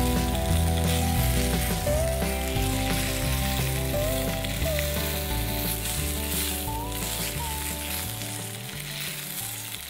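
Chorizo sausages sizzling as they fry in their own fat in a small steel camping pot. Soft background music with held notes and a slow-moving bass runs underneath and grows quieter toward the end.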